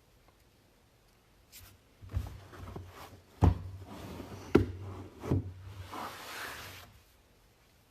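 Several knocks and scraping sounds of objects being handled and set down on a hard surface, over a low hum. The two loudest knocks come in the middle, and a longer rub comes near the end.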